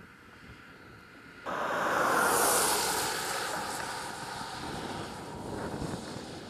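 Opel Corsa hatchback driving past on a track: tyre and engine noise that swells suddenly about a second and a half in, peaks with a hiss, then slowly fades.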